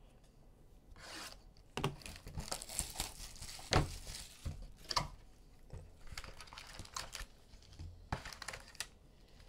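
Plastic shrink-wrap being torn and crinkled off a sealed box of trading cards, with a few sharp knocks as the box is handled.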